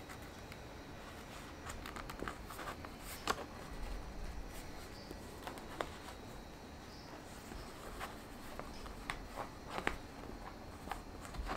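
Hand-sewing a book's paper signatures with a curved needle and thread: the thread pulled through the folds, the paper rustling, and scattered small ticks and taps.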